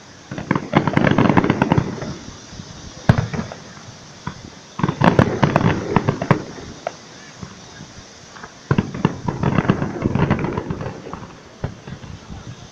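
Aerial fireworks going off in rapid salvos of many quick bangs and crackles. Three dense clusters come about a second in, around five seconds in and around nine seconds in, with a single sharp bang about three seconds in.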